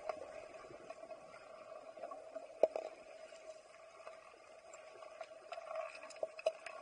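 Underwater sound in a swimming pool during underwater hockey: a steady hum with sharp clicks and knocks from sticks and the puck striking the tiled pool bottom. The loudest knock comes about two and a half seconds in, and two more come near the end.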